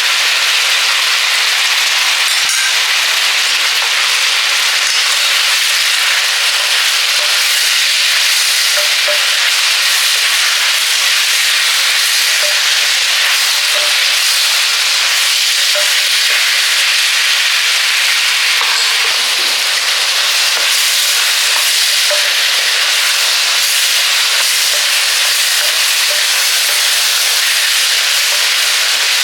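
Brinjal (eggplant) strips with onion frying in hot oil in a pan, sizzling with a steady hiss.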